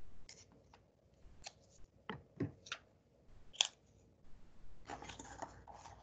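Paperback book being handled: a few separate light taps and clicks, then a denser rustle of paper pages near the end.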